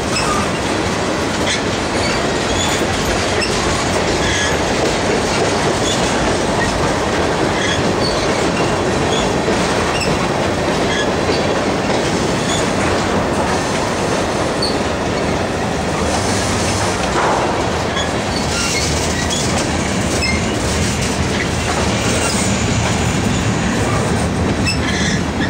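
Freight train tank cars rolling past: a steady rumble of steel wheels on rail, with short high-pitched wheel squeals scattered through it.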